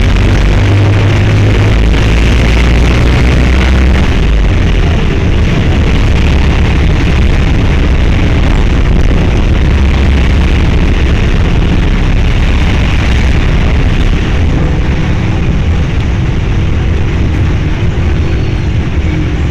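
Loud, steady rumble of a moving road vehicle heard from on board: engine and road noise, heaviest in the deep low end, with a steady haze of wind and tyre noise above it.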